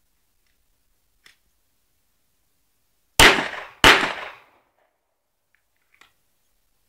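Two 9mm shots from a Glock 17 pistol, about two-thirds of a second apart, each trailing off in a short echo. A faint click comes about a second before the first shot and another near the end.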